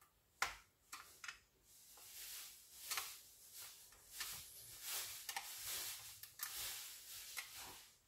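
Screwdriver turning a terminal screw down onto the cables in a plug socket's terminal, metal on metal: a few sharp clicks in the first second and a half, then repeated faint scraping.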